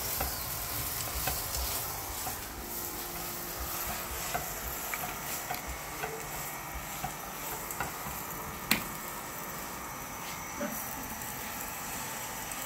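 Oiled mooli paratha sizzling steadily on a tawa, with light clicks and scrapes of metal tongs against the pan and one sharper click about two-thirds of the way through.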